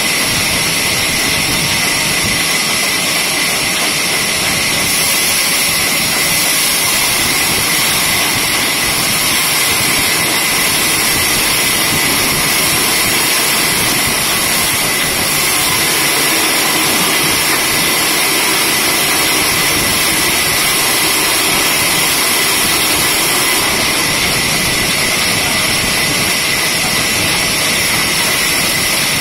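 Horizontal band sawmill running steadily with its blade cutting a log on the rail carriage: a loud, even, high hiss that strengthens about five seconds in and eases near the end.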